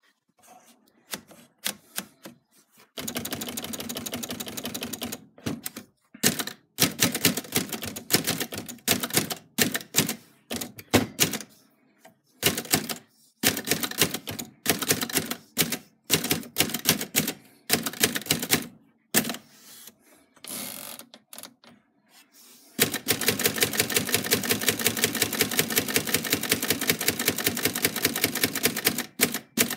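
Typebar typewriter typing: typebars striking the paper at an irregular pace, with two long runs of fast, even clicking, one a few seconds in and one filling most of the last third.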